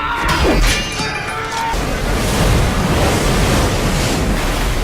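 Film soundtrack with a few music-like tones and knocks at the start, giving way after about a second and a half to a loud, steady rushing roar like surf or strong wind.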